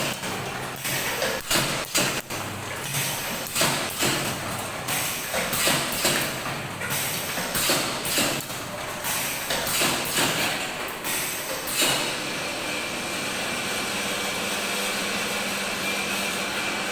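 Semi-automatic bottled-water packaging machinery working, with irregular knocks and clatter for about twelve seconds, then a steady even machine hum.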